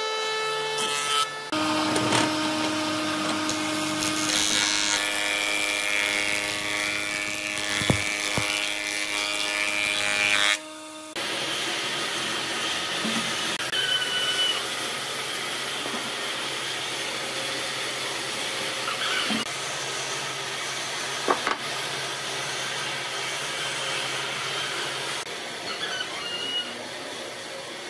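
Jointer-planer running and planing a weathered wooden railway sleeper, a loud steady machine sound with a strong hum, for about ten seconds before it cuts off suddenly. A quieter steady machine hum follows, with a few light knocks.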